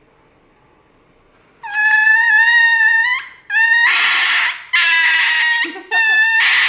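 Small dog screaming in pain or fear while being given an injection: quiet for about a second and a half, then a long high-pitched cry followed by a run of shorter, harsher cries.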